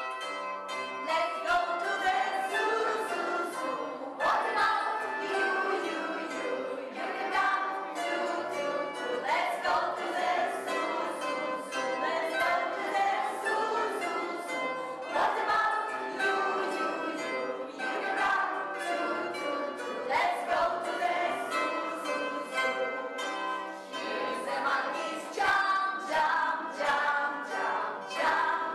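Children's choir singing a song together, accompanied by a plucked string instrument.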